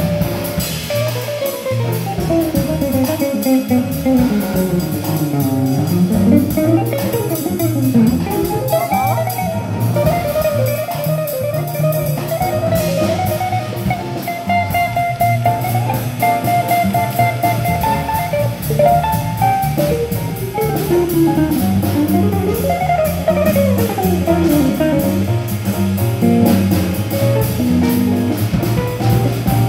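Small jazz group playing: an electric guitar solos in quick runs that climb and fall, over upright bass and a drum kit.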